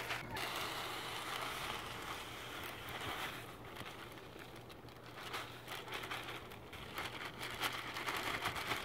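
Bagged garden soil pouring out of a plastic bag into a wooden raised bed: a continuous pattering, crackly hiss of falling soil with the plastic bag crinkling.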